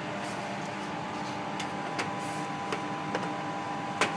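Steady hum of a laminar flow cabinet's blower. There are a few light clicks, and a sharper click near the end as the pipette tip box is handled.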